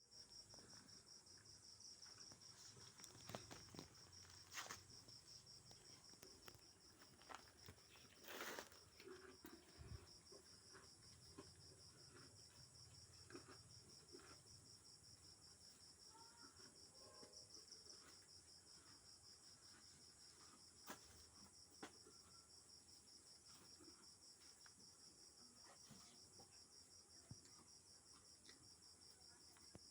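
Crickets chirping faintly and steadily in a fast, even pulse, with scattered faint clicks and knocks.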